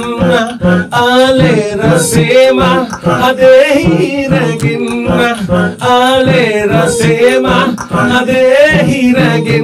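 A man singing a melody into a handheld microphone, his voice wavering with vibrato on held notes, over a repeating low pulse.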